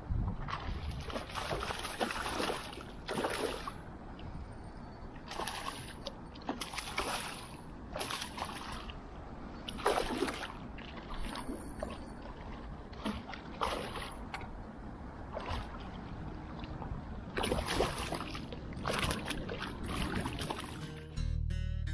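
Irregular splashes and sloshes of river water, one every second or two, over a steady background hiss. Acoustic guitar music comes in just before the end.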